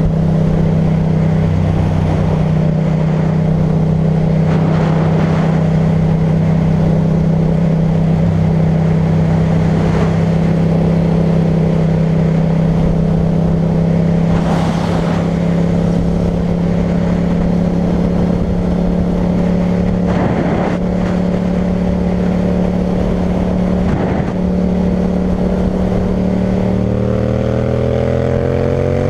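Yamaha MT-07's parallel-twin engine running through an Akrapovič titanium exhaust, holding steady revs while cruising, then revving up over the last couple of seconds as the bike accelerates.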